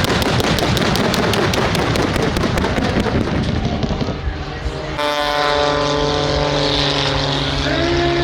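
Aircraft engines running loudly. A dense, rushing noise lasts about four seconds, then about five seconds in the sound changes abruptly to a steady engine drone with a clear pitch.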